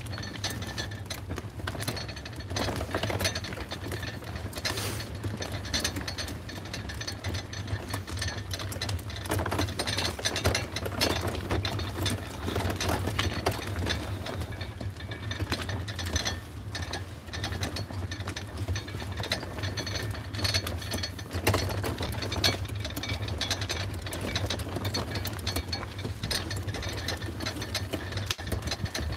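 A loaded hand trolley's wheels clattering and rattling over the pavement as it is pulled along, over a steady low rumble.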